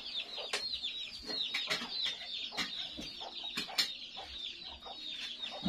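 Chickens cheeping continuously: many short, high-pitched calls, each falling in pitch, overlapping without a break. A few sharp clicks are mixed in.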